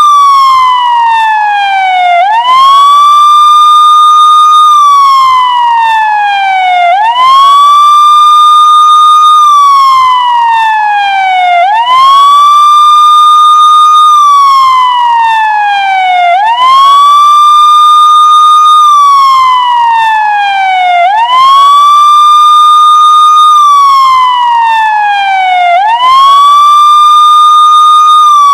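Police car siren sounding a slow wail. Each cycle rises quickly, holds a high steady note for about two seconds, then slides slowly back down, repeating about every four and a half seconds, six times.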